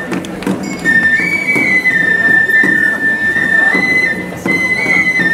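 Minshingaku, the Chinese-style music of Nagasaki Kunchi. A shrill wind instrument plays high notes, holding each one and stepping between a few pitches, with a few short percussion strokes underneath.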